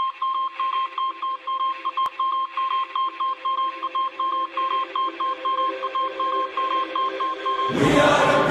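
Electronic beeping sound effect: a steady high beep chopped up rapidly, about four times a second, like a data-readout or telegraph. Near the end a loud music track comes in over it.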